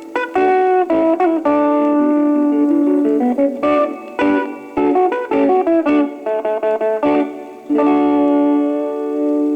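Instrumental guitar record: an electric guitar picks a melody over accompaniment, then settles on a long held chord about eight seconds in.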